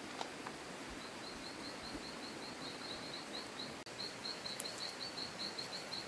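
Rural outdoor ambience with a steady run of short, high-pitched chirps at one pitch, about six a second, starting about a second in.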